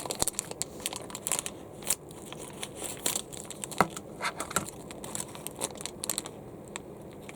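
Blind-bag wrapper crinkling and crackling in irregular bursts as a small squishy toy figure is worked out of it by hand.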